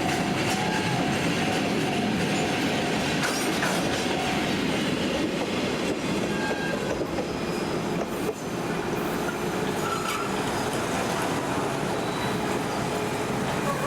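Railway wagons rolling past over the rails, with a steady rumble and clatter. A wheel squeal is held for the first few seconds, and a lower squeal comes in about two-thirds of the way through.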